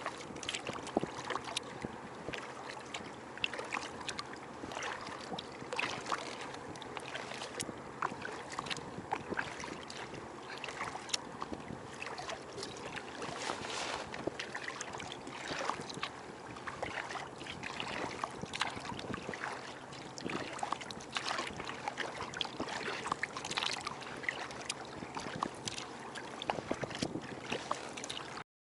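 Water splashing and lapping around a Feathercraft K1 folding sea kayak under way, with many small, irregular splashes over a steady wash of water.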